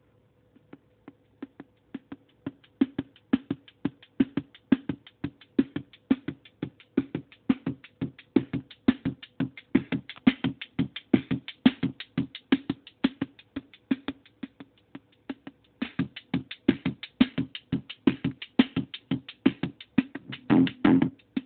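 Korg Monotribe drum sequence, a rapid even run of bass drum hits, played through a circuit-bent Yamaha computer speaker whose gain and distortion pots make it crunchy and distorted. It fades in over the first two seconds. Near the end it thickens into a dense distorted buzz as the knobs are turned, with a faint steady hum underneath.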